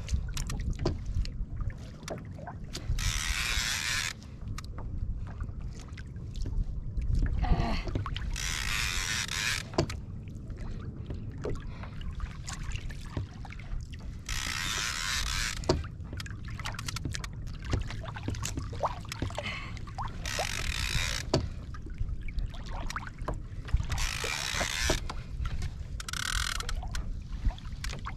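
Water washing against a kayak hull in bursts of hiss about a second long every few seconds, with many light clicks and ticks from a fishing reel being worked during a fight with a big fish, over a low rumble of wind on the microphone.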